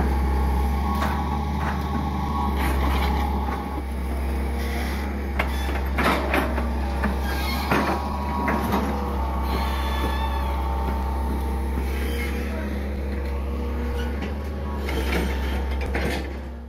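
Hitachi EX120 long-arm excavator's diesel engine running steadily under digging load, with several sharp knocks from the bucket and boom working in the channel.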